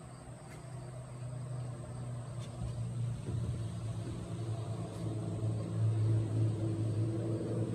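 An engine drone with a steady low hum, growing gradually louder.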